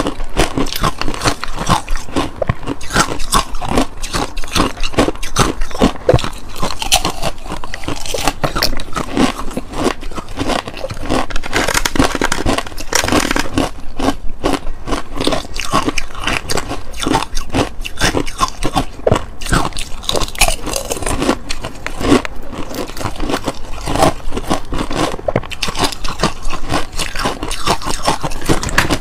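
Frozen ice being bitten and crunched close to the microphone: a dense, irregular run of sharp cracks and crackles, with teeth scraping against the ice.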